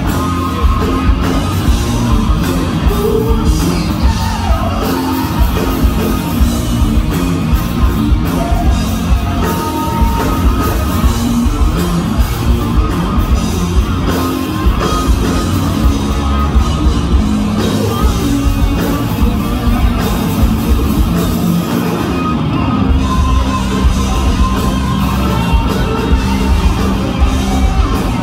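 Live hard rock band playing loud through a PA: electric guitars, bass and drums with a steady beat, recorded from the audience.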